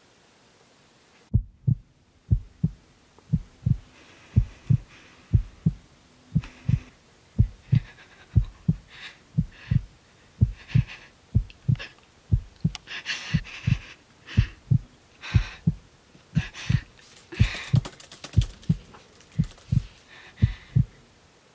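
Heartbeat sound effect: a loud double thump, lub-dub, repeating steadily about once a second. It starts a little over a second in, just after the background cuts to quiet.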